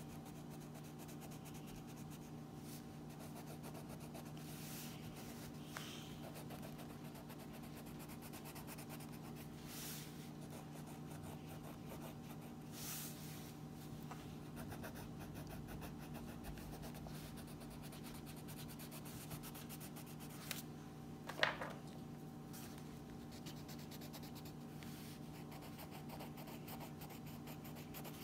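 Wax crayon scratching and rubbing on coloring-book paper as a child colors back and forth, faint over a steady low hum. One sharper knock about three-quarters of the way through.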